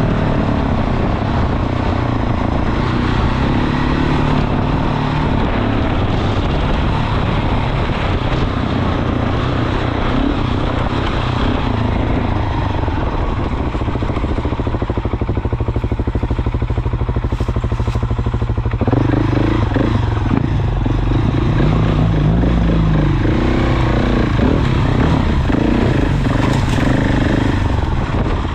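Adventure motorcycle's engine running as it is ridden down a dirt trail, heard from on board; the engine note changes about two-thirds of the way through as the throttle changes.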